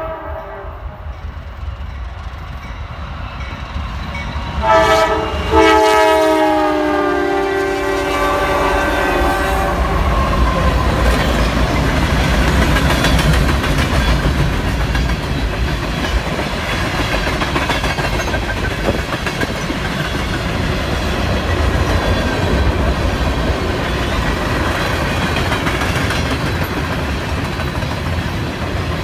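Diesel freight locomotive's multi-note air horn sounds briefly at the start, then a short blast and a longer one about five seconds in. After the horn, the freight cars roll past with a steady rumble and clatter of wheels on the rail joints.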